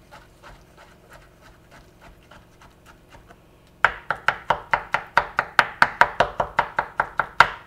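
Chef's knife chopping soft roasted aubergine flesh on a wooden chopping board: faint soft cuts at first, then, about four seconds in, a fast even run of sharp knocks, about five a second, as the blade hits the board.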